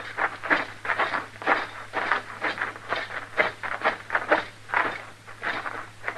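Radio-drama sound effect of two men's footsteps walking, an even run of crunching steps at about three a second.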